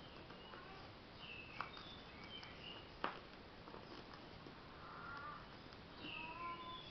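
Faint bird chirping in short high calls, with two sharp clicks about a second and a half apart.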